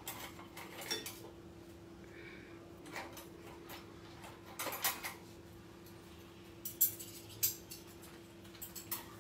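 Scattered light clinks and taps of dishes and utensils on a kitchen counter, a few at a time with pauses between, over a faint steady hum.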